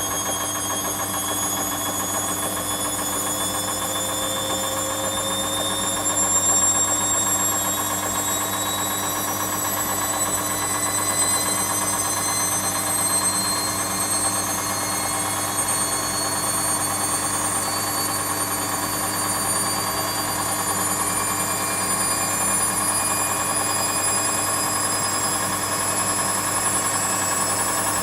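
Washing machine running with a steady motor hum and a high whine whose pitch creeps slowly upward.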